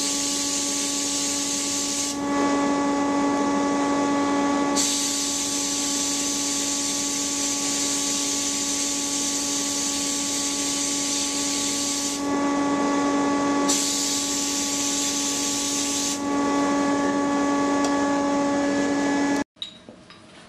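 Cabinet sandblaster running: a steady, loud hiss of compressed air and abrasive blasting against a small metal part, over a steady hum. The hiss thins out three times for a second or two, then stops abruptly about a second before the end.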